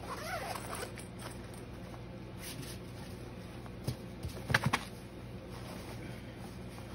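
Rustling of a soft bow case's fabric and mesh pockets as small stabilizers are packed into them. A few sharp clicks come in a quick cluster a little past the middle.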